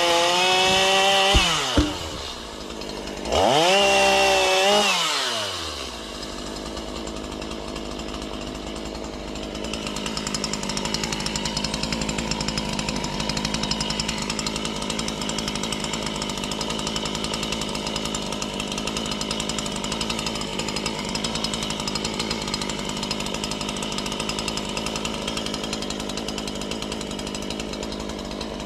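Chainsaw fitted with a tungsten-carbide chain, revving high and then dropping off about two seconds in, revving again, and falling away at about six seconds. After that it runs steadily and more quietly.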